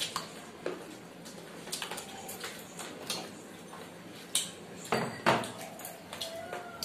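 Plates and dishes clinking and scraping as food is picked up by hand: scattered short clicks and scrapes, with a few sharper knocks a little after halfway.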